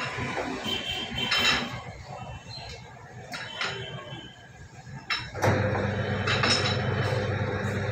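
Short metallic clinks and knocks from a steel pipe ring-rolling machine as its screw is wound down onto a 1-inch steel pipe. About five seconds in, the machine's motor starts and runs with a steady hum as the rollers turn and bend the pipe.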